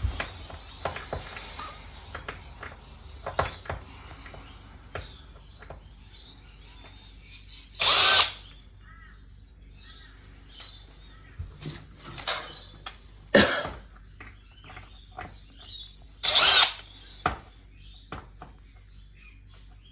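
Cordless electric screwdriver running in two short bursts, backing screws out of a TV circuit board, with scattered clicks and knocks of parts and tools being handled between them.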